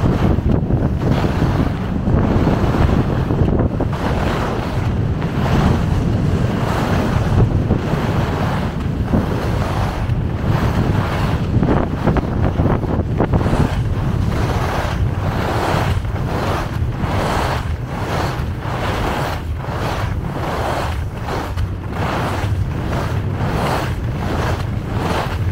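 Wind rumbling on the microphone of a downhill skier, over the hiss of skis scraping across packed snow. In the second half a rhythmic scraping repeats about twice a second.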